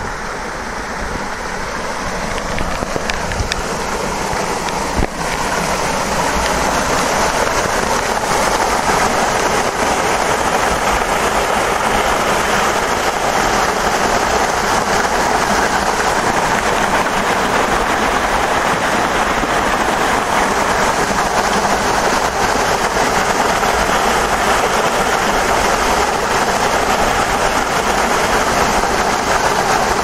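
Small waterfall spilling over a rock face and splashing into a rock pool: a steady rush of falling water. It grows louder over the first few seconds and then holds even.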